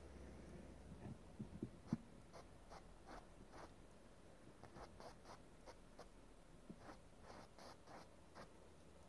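Faint, short strokes of a fine paintbrush on an oil-painted canvas, scratchy and repeated about every half second, with a few soft low knocks in the first two seconds.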